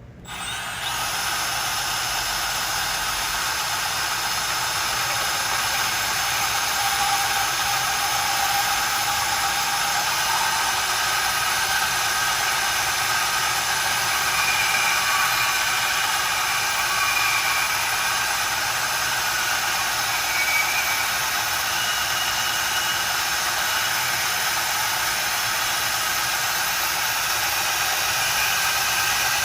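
Milwaukee M12 Fuel cordless bandsaw cutting through a grade 8.8 metric steel bolt. It starts about half a second in and runs steadily as a whirring, hissy blade noise with a few faint steady whines.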